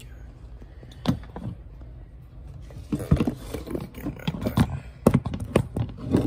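A run of sharp knocks and clatters from things being handled, with the rustle of a handheld phone being moved. There is one knock about a second in, then a cluster around three seconds in and several more toward the end.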